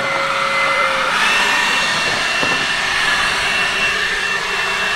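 Handheld leaf blower running steadily: a rushing blast of air with a motor whine, which steps up in pitch about a second in.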